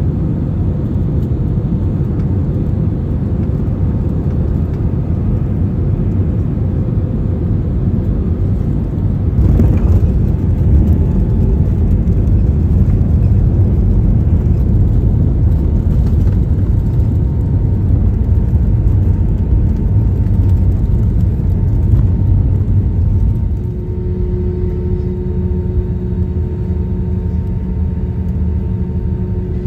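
Jet airliner heard from a window seat over the wing-mounted engine: a steady deep rumble of engines and rushing air, growing louder about ten seconds in. Near the end it drops to a quieter hum with a steady whine over it.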